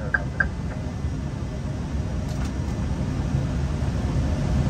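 Airbus A320 flight-deck noise on final approach: a steady, low rush of airflow and engine sound that slowly grows louder. Two short high beeps sound right at the start.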